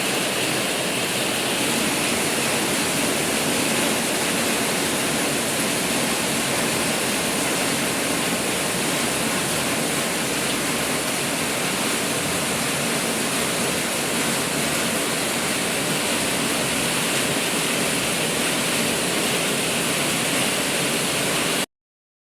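Heavy rain pouring down, a steady loud hiss that cuts off suddenly near the end.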